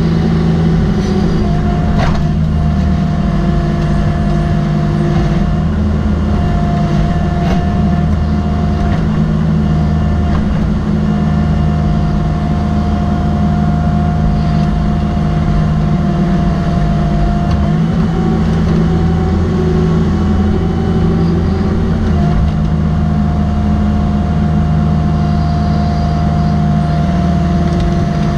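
Cat 305.5E mini excavator's diesel engine running steadily under working load, with a hydraulic whine that shifts in pitch now and then as the boom and bucket move. A couple of short sharp knocks come from the bucket digging in rocky ground, the first about two seconds in and another a few seconds later.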